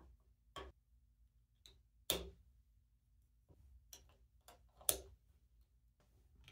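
Plastic LEGO bricks and plates clicking and tapping as they are pressed together and set down on the table: a handful of short, sharp clicks, the two loudest about two and five seconds in.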